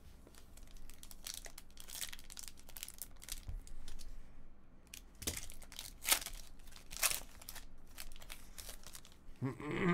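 Foil trading-card pack torn open by hand, its wrapper crinkling in a run of short, crisp crackles.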